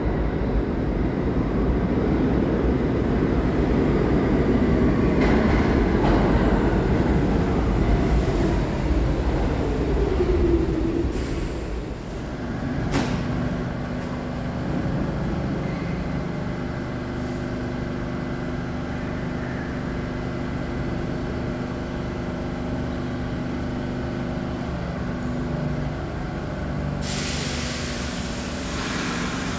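New York City R46 subway train arriving: a loud rumble of wheels on rail with a falling whine as it slows to a stop about eleven seconds in. A sharp click follows, then the steady hum of the standing train, with a hiss of air near the end.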